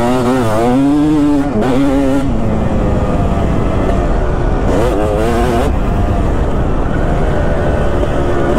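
2005 Kawasaki KX250's single-cylinder two-stroke engine under hard riding, its revs rising and falling as the throttle is worked, with a sharp climb in revs about five seconds in.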